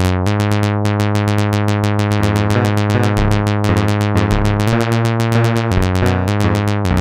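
Eurorack modular synthesizer playing a generative sequence sequenced by an Instruō SCÍON: bright, overtone-rich pitched notes that step to a new pitch every second or so over a steady low note, rapidly retriggered several times a second.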